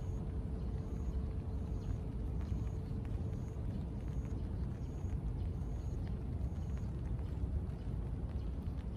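Outdoor ambience of a city park: a steady low rumble dominates, under a faint steady hum. A short high-pitched peep repeats a little more than once a second and stops about two-thirds of the way in.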